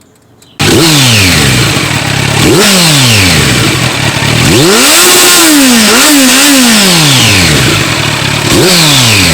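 Kawasaki Z900's inline-four engine breathing through a Delkevic carbon-fibre slip-on exhaust, revved in four throttle blips: the pitch jumps up and falls back each time, the third rev held for about two seconds. It starts suddenly about half a second in.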